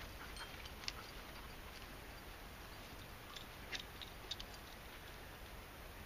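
Quiet outdoor ambience on a forest trail: a steady faint hiss with a few light, sharp ticks, about a second, three and a half and four seconds in.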